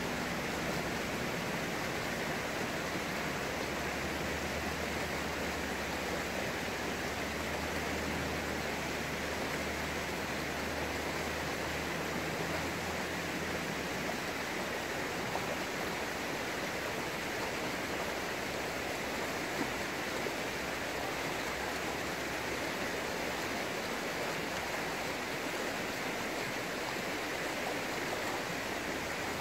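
Steady rushing noise, even from low to high pitches, with a faint low hum under it for roughly the first half.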